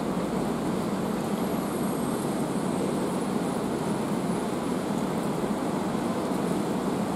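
Steady rain falling on a city, a continuous even hiss with no let-up. A faint thin high whine comes and goes in the middle.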